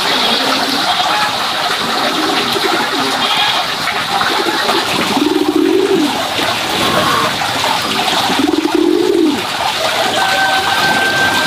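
Low cooing bird calls, the two longest about five and eight seconds in, over a steady rushing hiss like running water.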